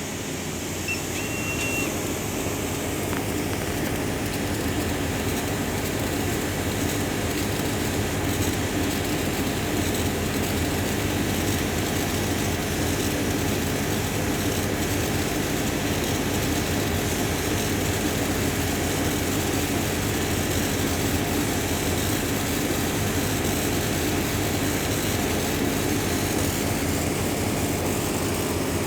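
Small CNC laser engraver running while it engraves wood, a steady mechanical hum that builds a little in the first couple of seconds and then holds even.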